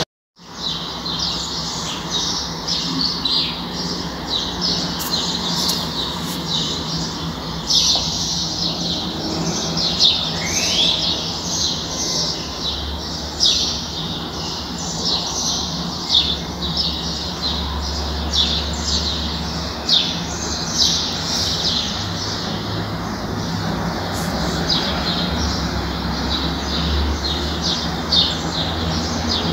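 Many small birds chirping, a dense, continuous chatter of short overlapping chirps, over a low steady hum.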